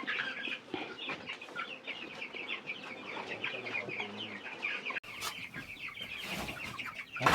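A large flock of about 500 broiler chicks, close to three weeks old, peeping all at once in a dense, continuous chatter of short high calls. The sound cuts abruptly about five seconds in and resumes with more background noise behind the peeping.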